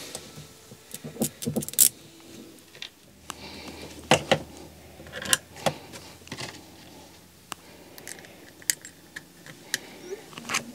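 Scattered small metallic clicks and clinks of a cable ring lug and terminal nut being handled and fitted at a battery terminal, at irregular intervals.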